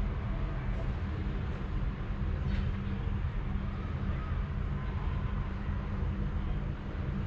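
A sleeping cat purring close by: a steady, continuous low rumble with a soft hiss above it.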